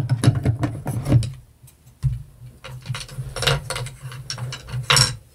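Irregular clicks, taps and crackling handling noise from a microphone cord being touched, with a low hum under the clicks and a couple of sharper clicks near the end.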